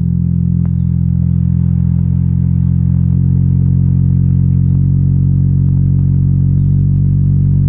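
Deep sustained bass notes from a bass-heavy electronic track played loud through a portable Bluetooth speaker, with almost nothing above the low range; the notes shift a few times and the level pulses slightly.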